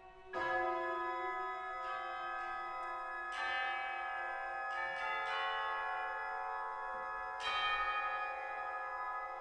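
Orchestral tubular bells struck with chime hammers: three heavy strokes, at the start, about three seconds in and about seven seconds in, with lighter strokes between, each ringing on long and overlapping the next.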